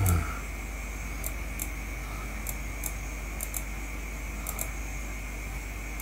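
Computer mouse clicking: about four pairs of sharp, light clicks, each a press and release, over a steady electrical hum and hiss. There is a brief low thump at the very start.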